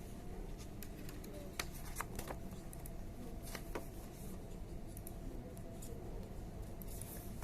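Scattered light clicks and taps, a handful of them, over a steady low hum.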